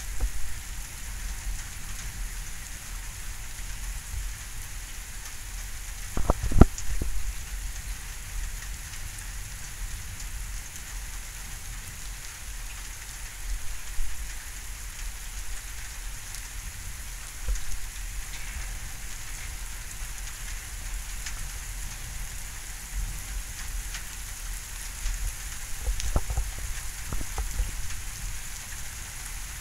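Steady rain falling in a thunderstorm, with a few brief low thumps about six seconds in and again near the end.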